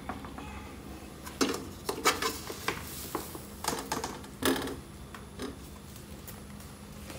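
Knocks and light clatter from the plastic housing of a Lock&Lock Jumbo Plus 5.2L air fryer being turned over and set down on a tiled floor. There are several separate knocks, the loudest about four and a half seconds in.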